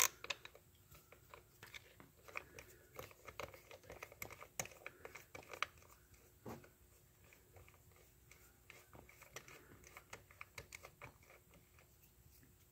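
Faint, irregular small clicks and rattles of an 8 mm socket on an extension turning out an ignition-coil hold-down bolt, with a slightly louder knock about six and a half seconds in.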